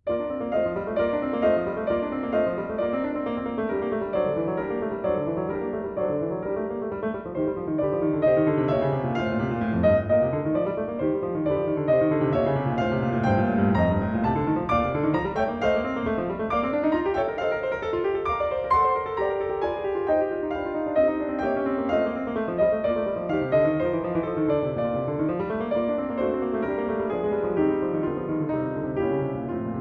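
Piano music with fast, rippling runs of notes up and down the keyboard.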